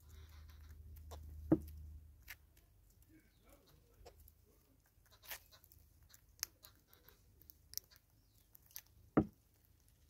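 Red-billed hornbills pecking seed off a wooden stump: scattered sharp taps and clicks of their bills, with two louder knocks, about a second and a half in and near the end.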